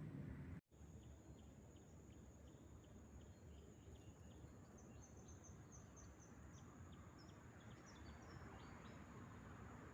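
Faint outdoor ambience: a steady high-pitched insect drone, with a run of quick bird chirps from about the middle on. There is a brief dropout about half a second in.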